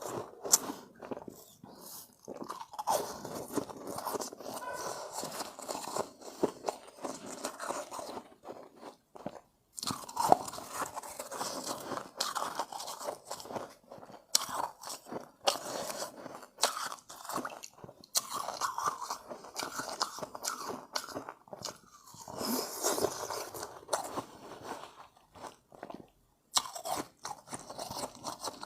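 Close-up crunching and chewing of refrozen shave ice, with rapid irregular crackly bites and short pauses between mouthfuls.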